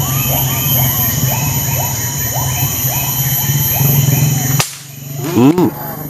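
An animal in the canopy calling over and over, short rising-and-falling calls about two a second, over a steady low hum. About four and a half seconds in there is a sharp crack, the hum and calls stop at once, and a few short pitched sweeps follow.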